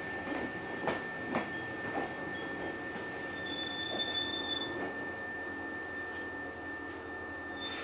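Inside a Hankyu 6300-series train car standing at its terminus: a steady high-pitched tone over low rumbling ambience, with a few knocks in the first two seconds and a brief higher tone about four seconds in.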